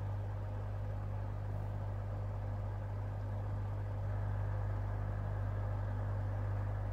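Electric desk fan running steadily on its second speed: a National F-MN305 motor turning a mismatched KDK KB30T blade, with a low motor hum under the rush of air, a little louder from about halfway through. The blade, fitted over heat-shrink tubing on the smaller shaft, runs a little off balance, with a slight wobble and choppy airflow.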